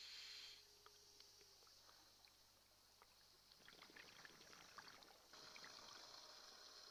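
Faint underwater scuba breathing through a diver's regulator. There is a short hiss of inhaled air at the start, a bubbly, crackling exhale a few seconds in, and then a steady hiss again.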